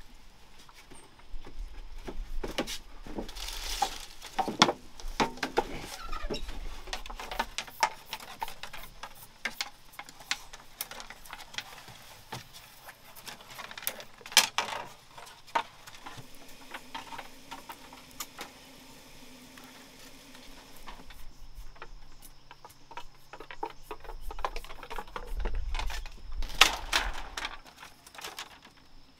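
Irregular clicks, knocks and rustling from hands-on work with wood and plant material, busiest in the first few seconds and again near the end.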